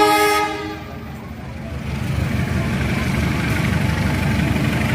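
A short, loud horn blast of under a second from a train, followed by a steady low engine rumble that grows louder from about two seconds in.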